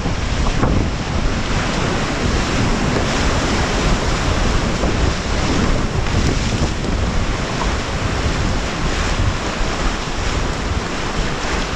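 Whitewater rapids rushing and churning around an inflatable raft in a steady loud roar, with wind buffeting the microphone.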